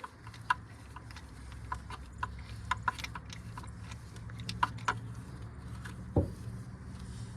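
Scattered light metallic clinks and taps, irregular rather than rhythmic, from hand tools and a spark plug being worked loose and handled, over a steady low hum. About six seconds in there is one short sound that falls in pitch.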